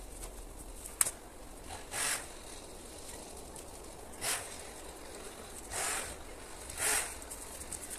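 Dead brushwood being gathered and handled in the forest: a sharp snap about a second in, then four short rustling crunches at uneven intervals over a faint steady hiss.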